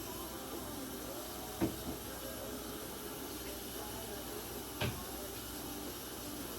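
Two sharp knocks, one about one and a half seconds in with a lighter one just after, and another near five seconds, over a steady hiss.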